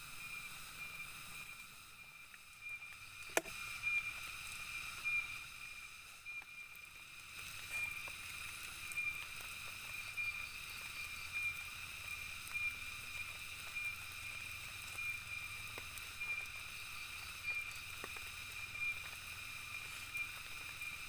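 Forest ambience: a steady, high-pitched insect drone over a soft hiss, with one sharp click about three seconds in and a few faint ticks.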